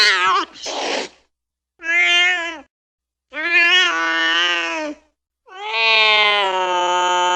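Angry domestic cat yowling: a call that ends about half a second in, then a short raspy burst, then three drawn-out wailing yowls, the last one the longest and still going at the end.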